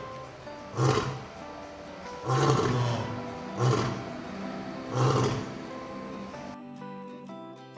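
African lion roaring in a series of four short, deep grunting roars about a second and a half apart, over soft background music; the roars stop about two-thirds of the way through, leaving only the music.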